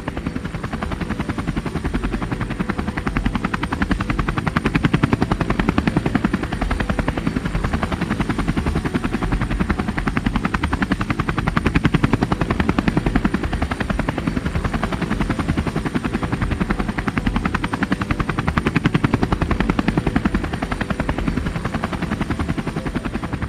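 Helicopter rotor blades chopping, a rapid steady beat that swells louder a few times.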